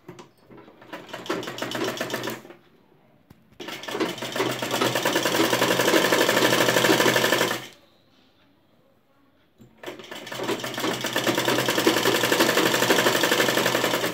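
Domestic sewing machine stitching fabric in three runs, its needle clattering fast and evenly: a short run, then two longer runs of about four seconds each, with brief pauses between them.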